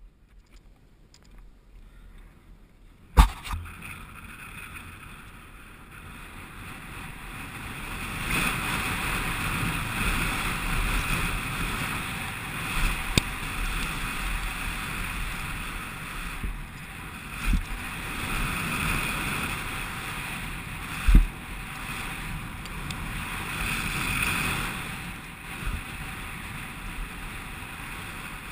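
A Specialized Big Hit downhill mountain bike running fast down a gravel trail, heard from a helmet-mounted camera. It is quiet at first, with one sharp thump about three seconds in. After that comes a steady rush of wind over the microphone and tyres rumbling on gravel, rising and falling with speed, with a few knocks as the bike hits bumps.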